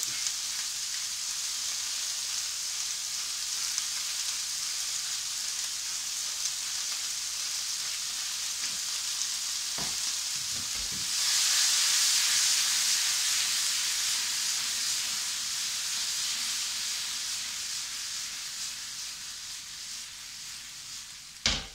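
Quartered cherry tomatoes sizzling in hot olive oil in a non-stick frying pan over high heat. The steady sizzle grows louder about halfway through and dies down toward the end, with a short knock near the end.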